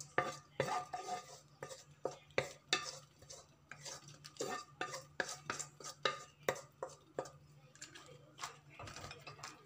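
A spatula scraping and knocking against a wok as crab pieces in thick red sauce are pushed out, the shells clattering into a ceramic serving dish: an irregular run of clicks and knocks.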